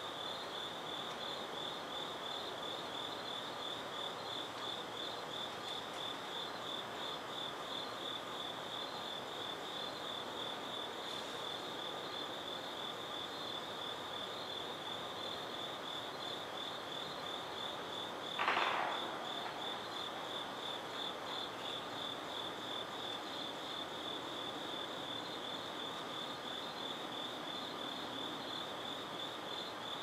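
Crickets chirping in a steady, high, evenly pulsing chorus. One short, louder noise cuts through about eighteen seconds in.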